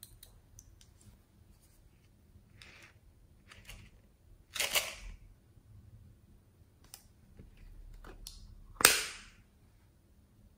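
Small hard plastic objects being handled: a few faint clicks, then two short, sharp clatters about five and nine seconds in, the second the louder.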